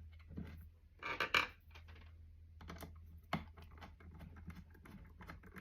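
Wood screws being turned by hand into the shelf and oak side piece of a pedalboard stand, giving irregular small clicks and ticks. There is a brief louder rub about a second in.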